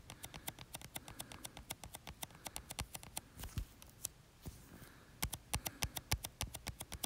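Fingertip taps on a phone's touchscreen, quick and faint at about six or seven a second, as a follow button is toggled over and over. The tapping thins out for about a second and a half near the middle, then picks up again.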